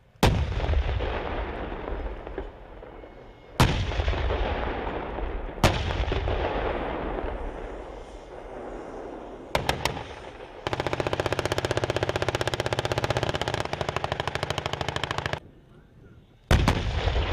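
M1A2 Abrams tank's 120 mm main gun firing three times, each a sharp blast followed by a long rolling echo. Then a few quick cracks and a long, rapid, even burst of machine-gun fire lasting several seconds, with more shots near the end.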